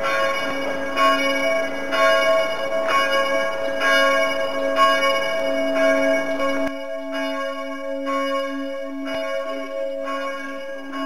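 Several church bells of the Marienkirche ringing together for the midday peal: fresh strokes about once a second over a continuous hum of overlapping bell tones. About two-thirds of the way through, the strokes become fainter while the bells keep sounding.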